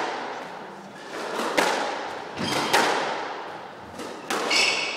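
Squash ball being hit by rackets and smacking off the court walls during a rally: three sharp hits about a second and a half apart, each ringing on in the hall. A short high-pitched squeak comes near the end.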